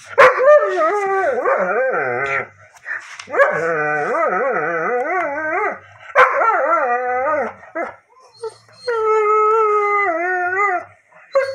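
Dog howling in four long calls that waver up and down in pitch, each a second and a half to two and a half seconds long, with short pauses between them.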